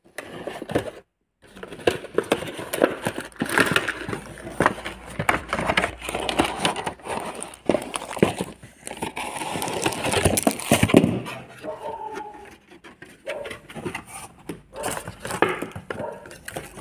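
Cardboard box and paper packaging being handled and pulled open close to the microphone: irregular rustling, crinkling and scraping with many small knocks.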